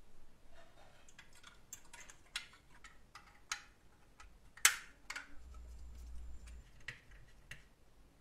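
Scattered small clicks and taps of a toy racing car's parts being handled and fitted together by hand, with one sharper click about halfway through as the clear plastic windscreen is pressed onto the body.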